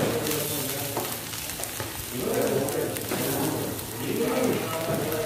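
Fried rice sizzling in a large steel wok over a gas burner while a ladle stirs it, with a few scrapes and knocks of the ladle on the pan.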